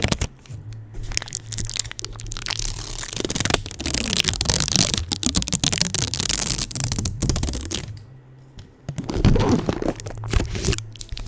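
Adhesive tape stuck on a microphone, pressed, rubbed and peeled fast, giving dense crackling and tearing with many sharp clicks. There is a brief quieter lull about eight seconds in.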